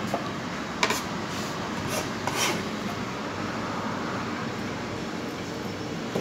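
Kitchen knife tapping a few times on a plastic cutting board, with a short scrape about two and a half seconds in as chopped cabbage and carrot are pushed together. A steady hum of room noise runs underneath.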